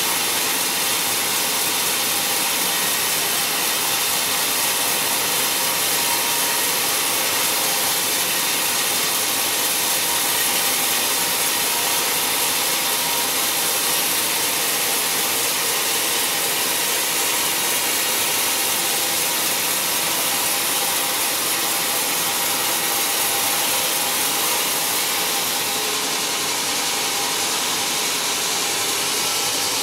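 Band sawmill ripping lengthwise through a squared timber beam on its log carriage: a steady, bright sawing noise of the blade in the wood over the running machine.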